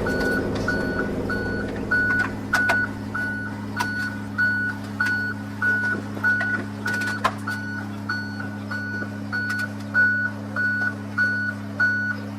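A vehicle's reversing alarm beeping steadily, about twice a second, over a heavy engine running. There are a few knocks and clanks.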